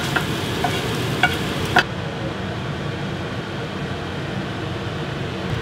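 Chicken and vegetables sizzling in a frying pan, with a few sharp clicks of a spatula stirring and scraping the pan in the first two seconds. The sizzle goes on steadily, duller, after that.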